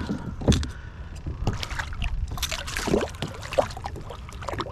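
Water sloshing and dripping around a fishing kayak, with many short knocks and clicks of things handled against the hull.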